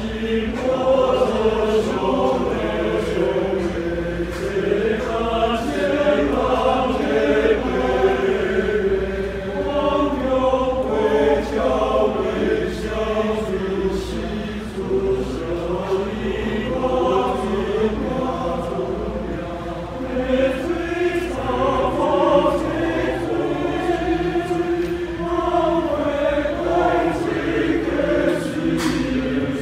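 Men's choir singing in phrases.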